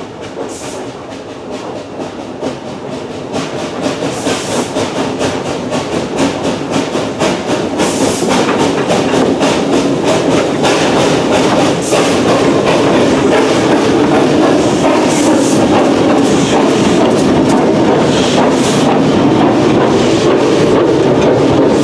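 Narrow-gauge Porter steam locomotive No. 58 and its open passenger car rolling past close by, the wheels clattering over the rail joints. The sound grows steadily louder as the train comes alongside.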